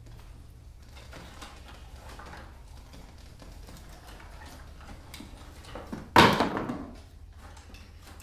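Wooden boards handled in a plastic bucket: light scraping and knocking, then one sudden loud clatter of wood about six seconds in that dies away within a second.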